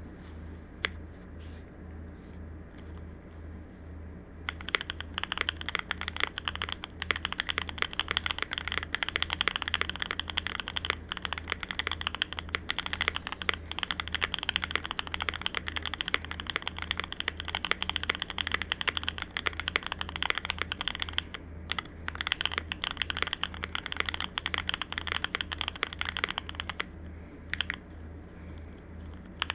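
CIDOO V65 mechanical keyboard with lubed Akko Cream Yellow V3 linear switches on a polycarbonate plate, with ePBT doubleshot keycaps, being typed on. There are a few single key presses at first, then fast continuous typing about four seconds in, with brief pauses near the end.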